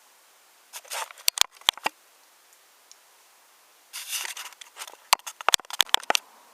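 Wooden toy train pieces clattering and clacking together in two bursts: a short rattle, then a run of sharp clicks, about a second in and again from about four seconds in.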